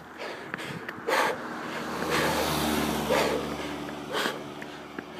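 A car driving past on the road, its engine and tyre noise swelling to a peak about two to three seconds in and then fading. A runner's hard breaths sound a few times over it.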